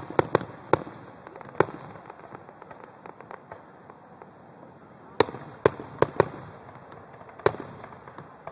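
Fireworks display bursting overhead in sharp bangs: a quick cluster of about five in the first couple of seconds, a lull of about three seconds, then another cluster of about five.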